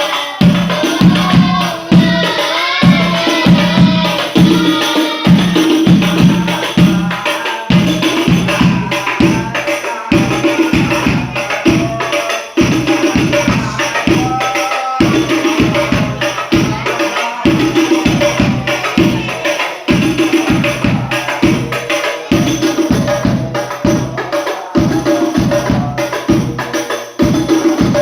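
Sholawat music played on rebana frame drums: many strokes in a fast, steady, interlocking rhythm, with jingle-like shimmer on top. Voices sing a wavering melody over the drums in the first few seconds.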